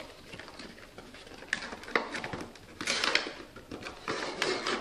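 Cardboard box and plastic wrapping handled as the box is opened and its contents slid out: irregular rustling and crinkling with a few sharp clicks, busiest about three seconds in and near the end.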